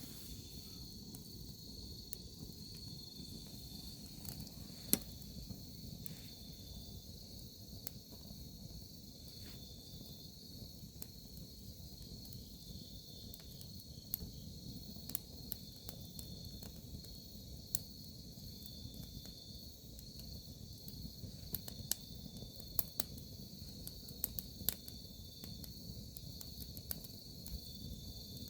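Crickets chirping in a steady chorus, with the scattered sharp crackles and pops of a burning wood campfire. The loudest pop comes about five seconds in, and several more stand out in the second half.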